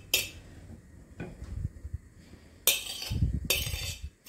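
Steamed couscous being tipped from a ceramic plate into a couscoussier's steamer pot for its second steaming: several short bursts of grains rustling and pattering down, with a couple of dull knocks.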